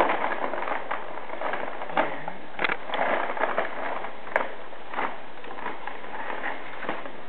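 Rummaging in a plastic bag: crinkling and rustling, with scattered light knocks and clicks as small craft items are handled.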